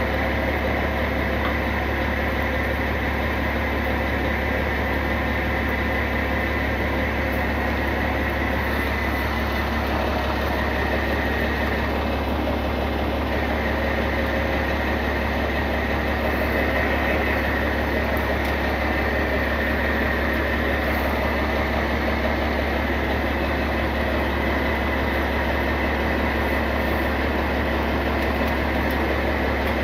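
Wrecker tow truck's engine running steadily at idle while it powers the winch, slowly pulling a rolled pickup up an embankment. A low drone with a steady high whine over it.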